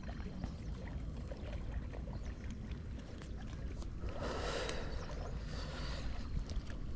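Steady low rumble of wind and water around an outdoor fishing spot, with a brief rushing, splashing noise about four seconds in.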